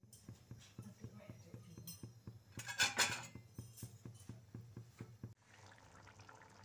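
Thick curry gravy simmering in an iron kadai, popping steadily about five times a second, with a metal spatula scraping across the pan about three seconds in.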